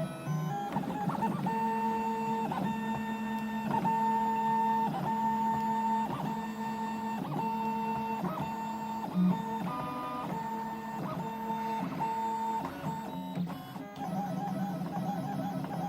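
Stepper motors of a Fischertechnik-built 3D printer whining while it prints, their steady tones shifting in pitch about once a second as the moves change. Near the end the pattern changes to a faster warble.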